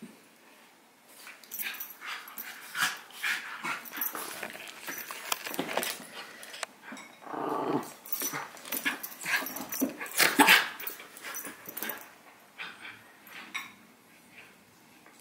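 Havanese puppy and miniature schnauzer play-fighting: scuffling and mouthing in short bursts, with growls now and then.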